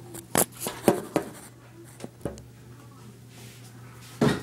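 Handling knocks and taps as a phone camera is moved about and set down on a tiled floor: a quick run of sharp taps in the first couple of seconds, then a louder thump near the end.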